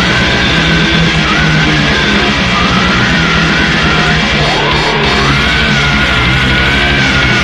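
A loud, distorted extreme-metal song with rapid, relentless drumming and yelled vocals.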